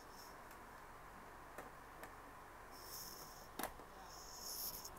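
Quiet room tone with a few faint clicks and two short, soft hissy rustles.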